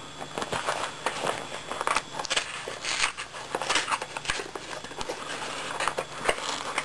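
Packaging being handled and unpacked by hand: irregular rustling, crinkling and small clicks and knocks.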